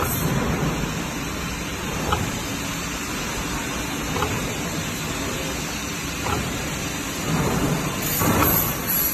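Semi-automatic liquid capsule filling machine running with a steady hiss, a sharp click about every two seconds and a louder swell of noise near the end.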